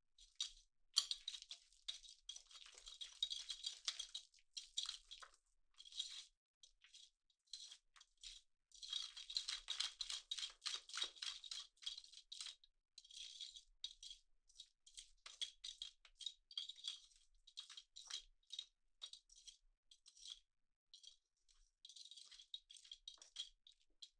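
A metal wire whisk beats an egg-and-flour batter in a glass bowl: its wires click and scrape rapidly against the glass in quick runs with short pauses.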